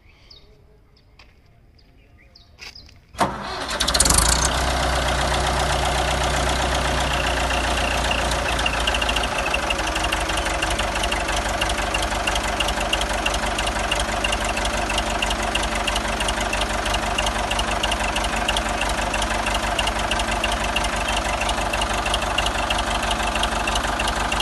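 Ford 6600 tractor's four-cylinder diesel engine, which comes in suddenly about three seconds in, swells briefly, then runs at a steady idle.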